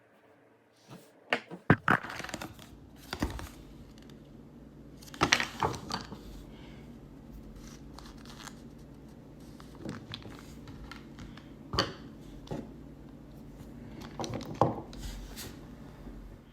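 Hands working with small parts and packaging: crinkling and rustling with scattered sharp clicks and knocks, over a low steady hum.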